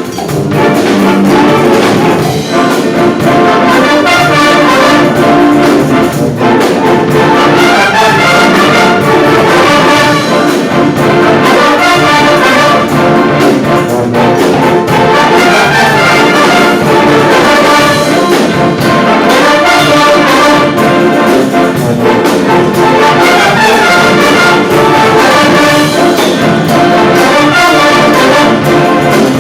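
A brass-heavy wind band playing, loud and continuous, with trombones and trumpets to the fore.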